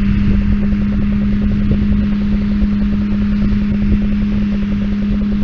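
Tractor running at a steady engine speed, driving a hay baler: a constant hum over an even, rough rumble.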